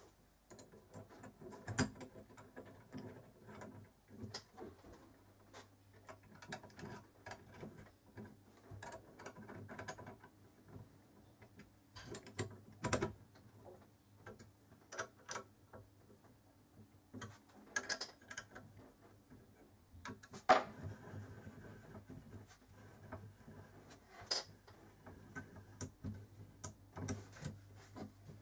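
Irregular small metal clicks, taps and knocks as the cross-slide carriage and handwheel of a home-made mini metal lathe are fitted together by hand, with a sharper knock about twenty seconds in. A faint steady low hum runs underneath.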